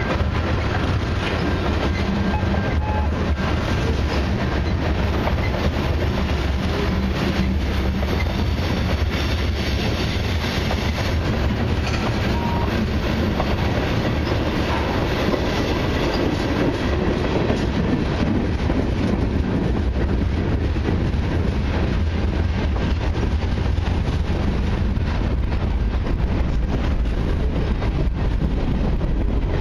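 Freight cars (tank cars, covered hoppers and boxcars) of a long mixed freight train rolling past. A steady rumble and clatter of steel wheels on rail, with clickety-clack over the rail joints.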